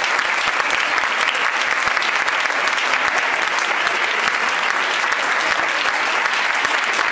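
A large audience applauding steadily, a dense patter of many people clapping at the end of a lecture.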